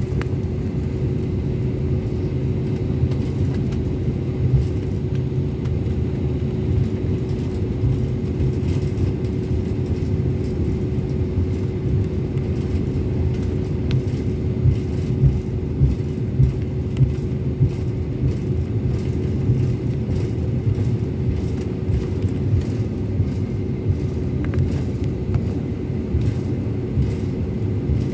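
Airliner cabin noise during taxi: a steady low rumble of the jet engines at low power with a constant hum, and scattered light knocks.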